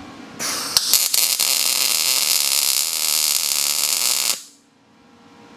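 MIG welder arc sizzling steadily for about four seconds, with a few sharp crackles as the arc strikes, then cutting off abruptly: tack-welding the sway bar mounts in place.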